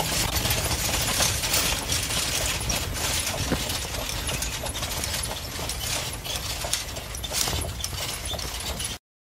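Ride in a horse-drawn carriage: hooves clip-clopping and the cart rattling over a steady road noise. The sound cuts off abruptly near the end.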